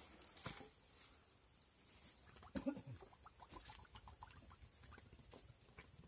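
Faint rustling and scattered small clicks, with one short, slightly louder low sound that falls in pitch about two and a half seconds in, followed by a run of quick small ticks.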